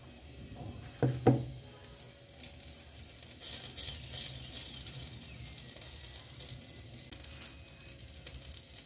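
Aloo paratha sizzling on a hot tawa (flat griddle) as it is greased with a spoon, a crackling hiss that comes up about two seconds in. Two sharp knocks about a second in.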